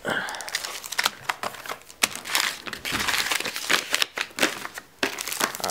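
Crinkling and crackling of a trading-card blister pack's clear plastic shell and paper-card backing being crumpled and handled, a dense run of sharp crackles that briefly drops off about four seconds in.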